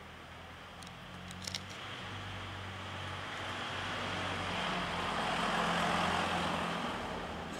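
A car driving past, growing louder and then fading, loudest about six seconds in.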